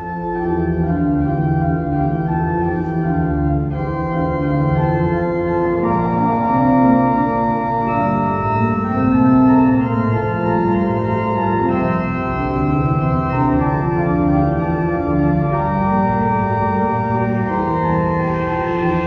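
Organ music playing full, sustained chords that change slowly, cutting in suddenly.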